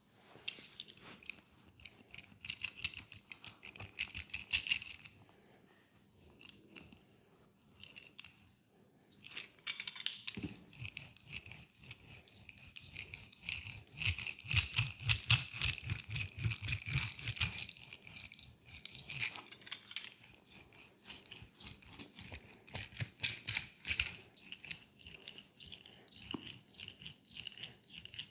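Close-miked leg massage: crisp rubbing and clicking of hands working on the leg, with a run of quick soft thumps in the middle.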